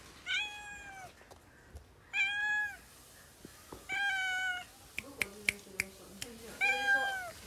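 Ginger tabby kitten meowing four times, each meow short, high and slightly arched in pitch. A few sharp clicks come between the third and fourth meows.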